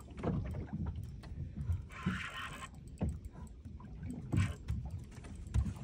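Small boat on the open sea: uneven low rumbling of water moving against the hull, with a short hiss about two seconds in.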